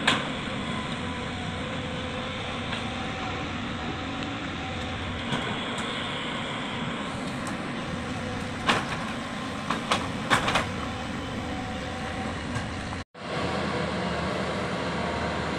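Tracked hydraulic excavator's diesel engine running steadily as it digs into rock and soil, with a few sharp knocks between about the middle and two-thirds through. Near the end the sound breaks off for a moment and resumes as a steadier, lower drone.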